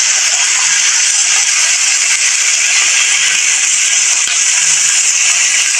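Chicken pieces frying in oil in a hot wok, a steady, even sizzle.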